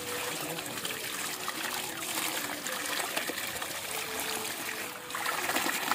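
Tap water running from a plastic pipe into a plastic basin and splashing as hands rinse leafy greens under the stream. The splashing gets louder about five seconds in.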